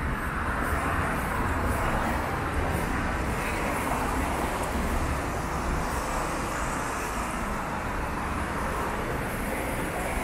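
Steady city traffic on a rain-wet avenue: the even hiss of tyres on wet road with a low engine rumble underneath.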